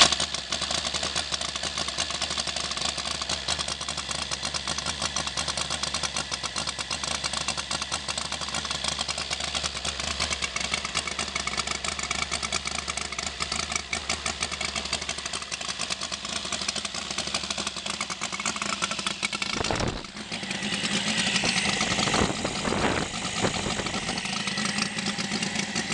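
Saito FG-90R3 three-cylinder four-stroke petrol radial engine, with an MRS muffler, running steadily on a test bench during its first break-in run. About twenty seconds in the sound dips briefly, then runs on a little louder and brighter.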